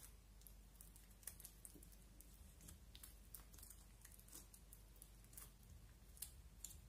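Faint, irregular sticky clicks and small pops from fingers poking and pressing glittery slime on a glass plate, several a second.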